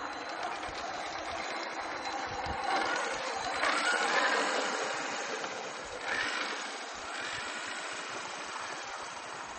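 Electric drive of a 1:5 scale RC Fennek model running as the 15 kg car drives over grass, a steady mechanical whir that grows louder as it passes close about four seconds in and again briefly near six seconds.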